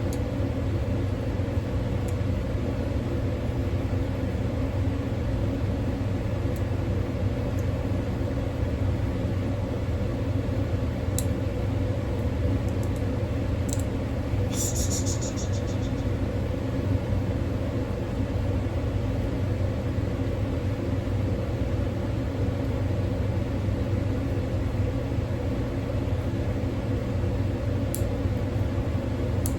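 Steady low machine hum throughout, with a few faint clicks and a brief high, rapidly pulsing scrape about halfway through.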